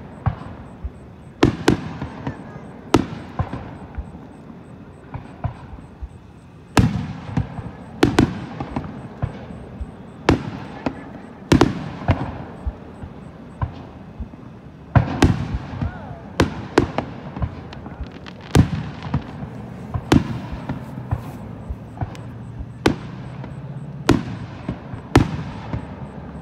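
Aerial firework shells bursting one after another: about twenty sharp booms at uneven intervals of roughly a second, each trailing off in a rumbling echo.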